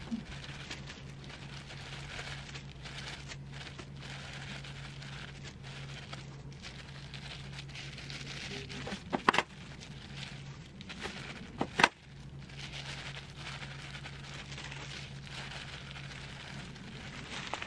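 Hands laying fillings on a sheet of gim for kimbap: light crackling and rustling over a steady low hum, with two sharp knocks about nine and twelve seconds in.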